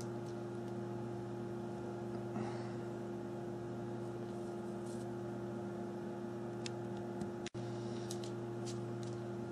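Steady low electrical hum with a few faint clicks, cutting out for an instant about seven and a half seconds in.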